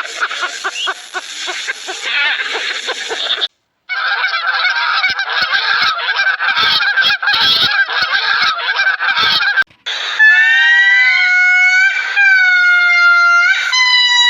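A flock of geese honking, a dense chorus of overlapping calls, in two stretches broken by a brief cut. From about ten seconds in, a few long, drawn-out pitched calls take over.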